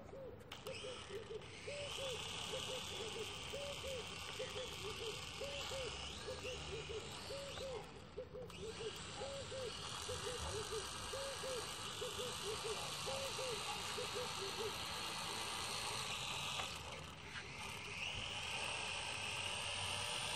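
Small toy quadcopter's electric motors and propellers whining steadily as it is driven across the water on a float, the whine easing off briefly twice as the throttle is let back. A quick series of short low calls, about two a second, runs under it until about three-quarters of the way through.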